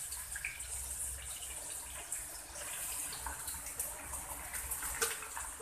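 Hot oil sizzling steadily in a kadai as sliced onions are tipped into a tempering of chillies and curry leaves and stirred, with small crackles throughout.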